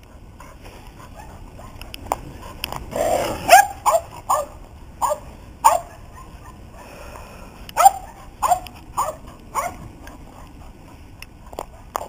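A dog barking: about ten short barks in two bunches, the first starting about three seconds in, the second about eight seconds in.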